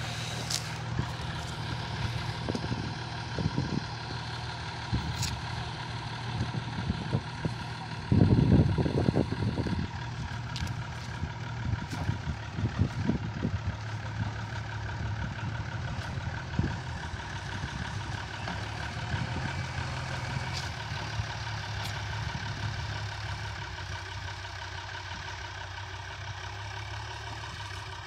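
Diesel engines of a sugarcane-loaded Tata truck and a backhoe loader running steadily while the backhoe's bucket pushes the truck across the soft field, with scattered knocks. There is a louder surge about eight seconds in.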